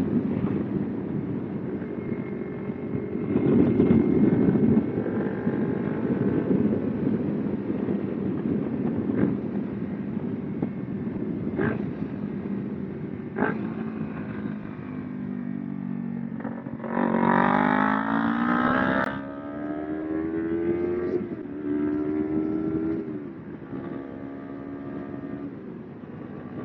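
Kawasaki Ninja 250R's parallel-twin engine running under way with wind rushing over the microphone. The revs climb steeply about two-thirds of the way through, drop off sharply, then rise twice more briefly.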